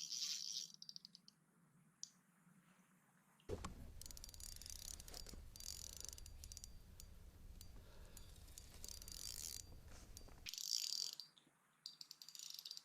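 A fishing reel being cranked: a run of fine mechanical clicking over a low rumble that starts about three and a half seconds in and stops abruptly about seven seconds later, with a few scattered clicks before it.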